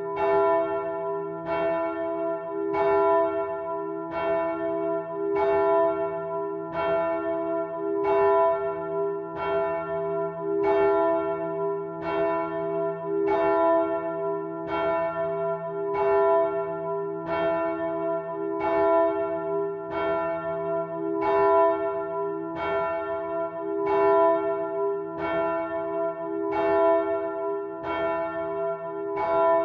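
A swinging bronze church bell, cast by Michiels of Tournai in 1957, rings in full swing. Its clapper strikes at an even pace a little under once a second, and each stroke rings on with a steady low hum beneath it.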